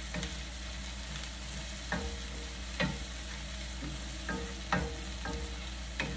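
Onion, garlic and ginger sautéing in a pot: a steady sizzle, with a stirring utensil knocking against the pot about six times.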